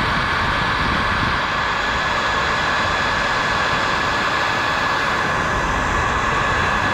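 Heat gun blowing steadily with a high whine, shrinking heat-shrink tubing over a soldered wire joint.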